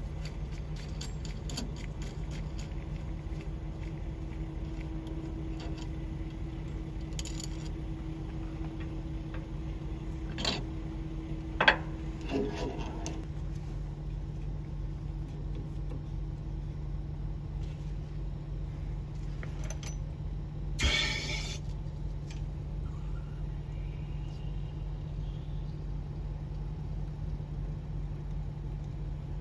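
Metal tool parts clinking and knocking as the hydraulic cylinder and adapter cups of a bushing press kit are taken off a freshly pressed cab bushing. There are a few sharp clinks early on and a cluster around the middle, then a short metallic rattle, all over a steady low hum.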